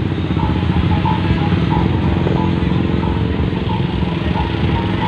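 Jammed road traffic: many motorcycle and car engines idling and creeping along. Loudspeaker music plays over the traffic, with a short high note repeating about three times a second.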